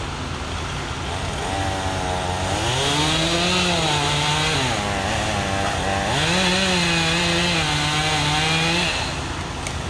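Chainsaw run up to full throttle twice, each time held for two to three seconds, cutting into a fallen pine tree, with the engine settling back to a lower running note in between.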